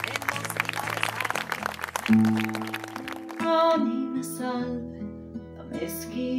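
Audience applause, then about two seconds in an acoustic guitar begins playing and a woman starts singing a moment later, a slow song with guitar accompaniment.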